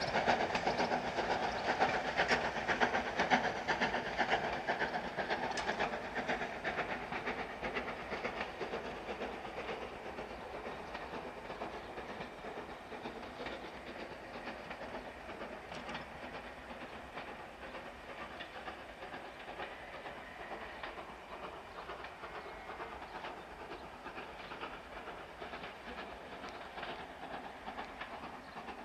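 GNR N2 class tank steam locomotive hauling its train away, its exhaust and the clatter of wheels on rail fading into the distance over the first half and staying faint after that.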